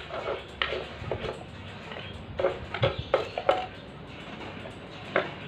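Kitchen knife knocking on a wooden chopping board as chilies and other spices are sliced by hand: irregular sharp taps, bunched together in the middle and one more near the end.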